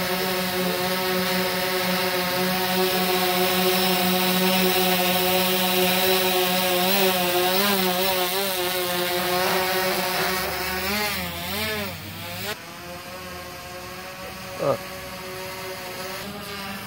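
Yuneec Typhoon H hexacopter's rotors humming close overhead, a steady multi-toned whine that wavers up and down in pitch as the drone manoeuvres. About twelve seconds in it grows quieter as the drone climbs away, and a short loud blip follows a couple of seconds later.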